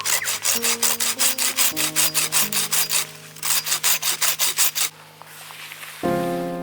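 Folding pull saw cutting through firewood with quick, even back-and-forth strokes, in two runs with a short break about three seconds in, stopping about five seconds in.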